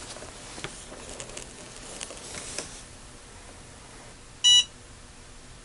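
Battery spot welder's buzzer giving one short, high electronic beep as it fires a weld pulse, about four and a half seconds in. Before it there is faint rustling and a few light clicks as the welding leads and tips are handled.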